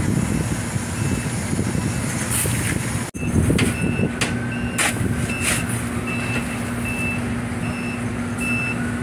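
A vehicle's reversing alarm beeping in an even run of short high beeps, about two a second, over a steady engine hum and dockside noise, with a few sharp knocks.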